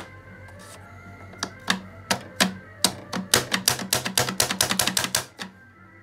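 A series of sharp clicks, a few spaced out at first, then a quick run of about five a second that stops about five and a half seconds in. Faint background music underneath.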